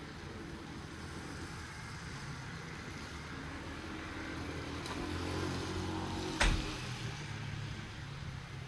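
Steady hiss of light rain falling. A low rumble swells and fades through the middle, and there is a single sharp knock about six and a half seconds in.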